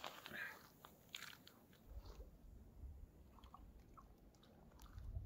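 Near silence, broken by a few faint, scattered clicks and crunches from hands handling an ice-fishing tip-up and its line at a hole in the ice.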